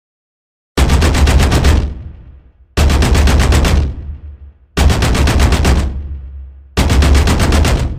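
Machine-gun fire sound effect: four bursts of rapid shots, each about a second long, about eight or nine shots a second, two seconds apart, each dying away after the last shot.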